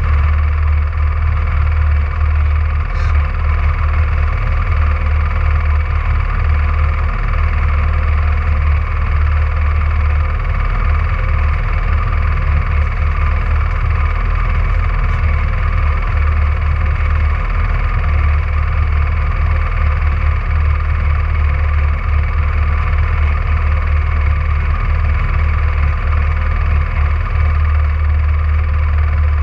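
Rally car engine running steadily: a loud, constant low drone that holds one pitch without revving up or down.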